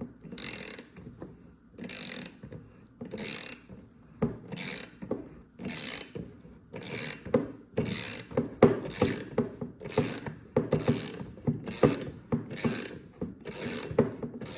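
Ratchet wrench clicking on its back-strokes in a steady rhythm, about one stroke a second at first and quicker later, as it turns the forcing screw of a claw bearing puller drawing the worn bearing off a pool pump motor shaft; sharper creaks and knocks join in the second half as the bearing gives.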